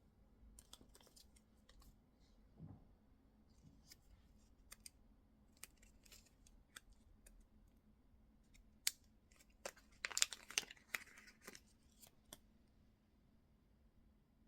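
Faint, scattered small clicks and crisp rustling of objects being handled close by, with a denser flurry about ten seconds in.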